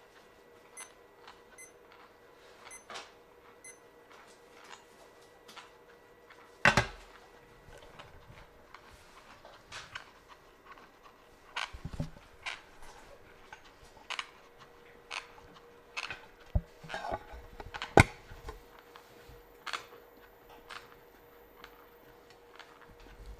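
Irregular clicks and taps of a patient's teeth meeting as they bite and grind against SHOFU lapping paste, which is used to grind in and even out the bite. Two knocks, about a third of the way in and about three-quarters through, are much louder than the rest. A faint steady hum runs underneath.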